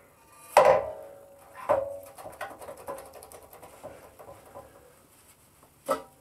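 Steel side stand of a BMW R1150GS being swung on its pivot by hand, likely to work in fresh oil. Metal clanks, each with a short ring, come about half a second in and again near two seconds. Lighter clicks follow, and there is one more clank just before the end.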